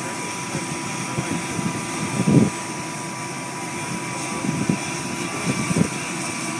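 Coast Guard MH-60 Jayhawk helicopter's turbine running on the ground during its pre-flight: a steady rushing noise with a thin held whine. A few short low thumps break through, loudest about two seconds in.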